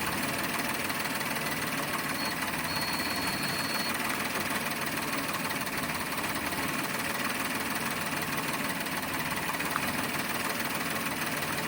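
Toyota Wigo's three-cylinder petrol engine idling steadily. A faint high tone sounds for about a second and a half, starting about two seconds in.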